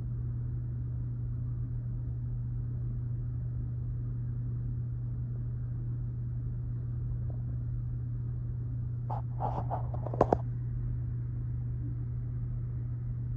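Steady, muffled low rumble of a freight train heard from indoors through a closed window. A few brief knocks and clicks come about nine to ten seconds in.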